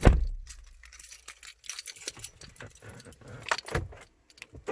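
A bunch of keys jangling and clinking in short bursts, with a heavy thump right at the start.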